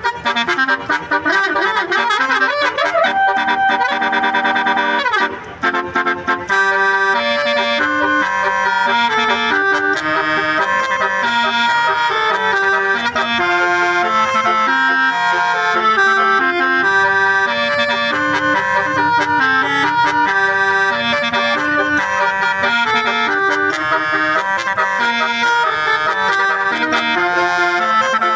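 Multi-tone Basuri 'telolet' bus horn playing a melody in reedy, accordion-like tones. It slides between notes for the first few seconds, then settles into a steady tune over a repeating bass line.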